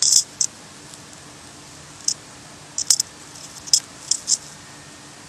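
Phone-handling noise on the phone's microphone: a handful of brief, sharp scratchy ticks and rustles at irregular moments over a faint steady hum.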